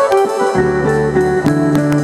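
Live dance-band music: an accordion plays a melody in held notes over a sustained bass line, with a few drum-kit and cymbal hits.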